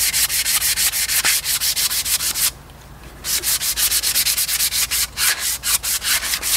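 Coarse 80-grit sandpaper rubbed hard back and forth along a wooden axe handle in fast strokes, about five a second, taking off grain raised by hot water. The strokes stop for a moment about two and a half seconds in, then carry on.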